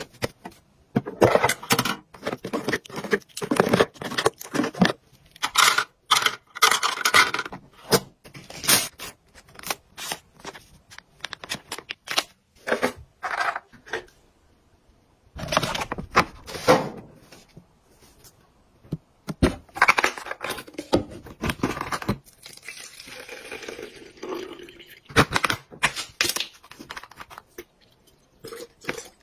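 A string of close-up handling sounds: soft tissue rustling and tearing, and plastic clicks and taps, coming in short bursts with brief silences between.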